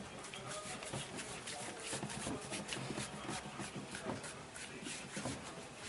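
Hands rubbing, kneading and patting on a person's body and clothing during a manual chiropractic and massage treatment: a busy, irregular run of soft taps and rubs.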